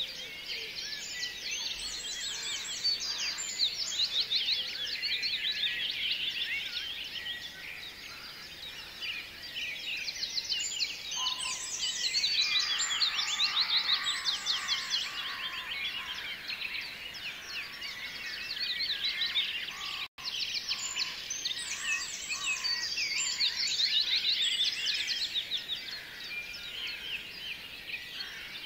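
Dense chorus of many small birds chirping rapidly, swelling louder and fading back every several seconds, with a momentary dropout about twenty seconds in.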